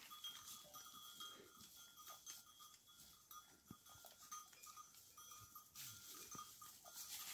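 Near silence with faint, scattered sounds from a herd of goats resting among trees: a few soft short calls and small rustles and ticks.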